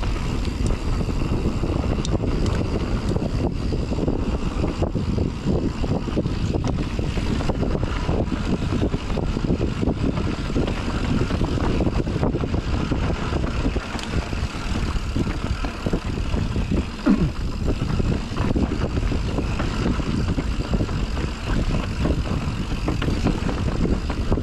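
Mountain bike ridden fast over a dirt trail: steady wind rush on the helmet camera's microphone mixed with constant rattling and clattering of the bike over roots and rocks, with one harder jolt about two-thirds of the way through.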